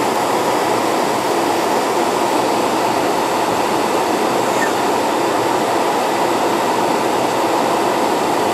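Heavy rain falling on a car's roof and windshield, heard from inside the cabin as a loud, steady noise.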